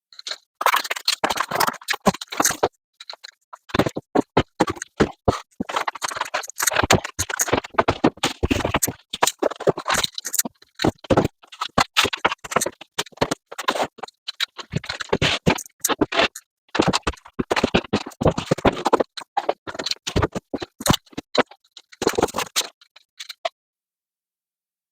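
Foam insulation boards and plywood subfloor sheets being handled and set into wooden floor framing, with irregular scraping and knocking of board on board and wood on wood.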